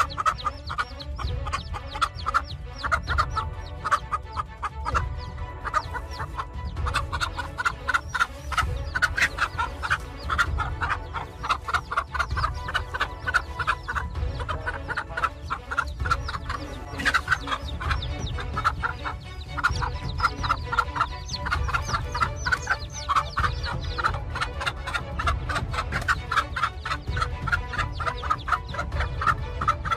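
Hen clucking rapidly and without pause, over low background music.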